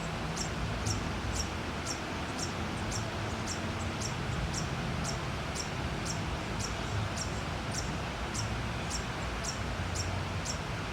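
A cricket chirping steadily, short high chirps about twice a second, over a steady low hiss.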